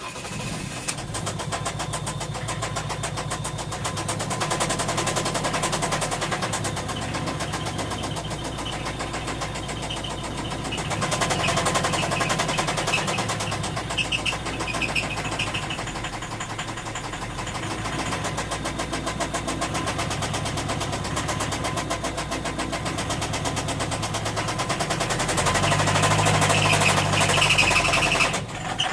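Ford Mondeo Mk4 2.0 TDCi four-cylinder turbodiesel engine running with a rhythmic knock, the engine speed rising and falling a few times. The uploader takes the knock for a worn connecting rod bearing on one of the cylinders.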